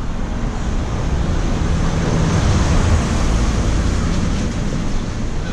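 A motor vehicle passing, engine and road noise swelling to a peak about halfway through and then fading.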